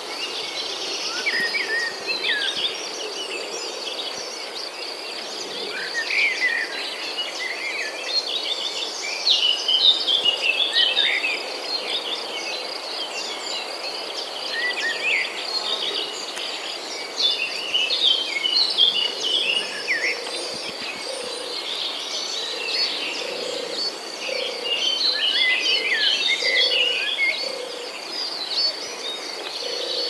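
A chorus of many small birds chirping and whistling over a steady, high insect trill, with a low call repeating in the second half.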